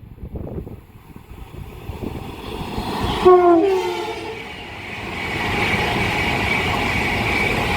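An Avanti West Coast Class 390 Pendolino electric train approaches at speed and sounds a short two-note horn about three seconds in, its pitch dropping with the Doppler effect. The steady rush of the train passing follows, with a high whine.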